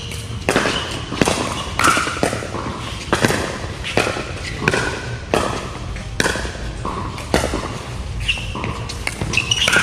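A pickleball rally: paddles popping against the plastic ball and the ball bouncing on the hard court, a sharp knock every half second to second, each echoing in a large hall.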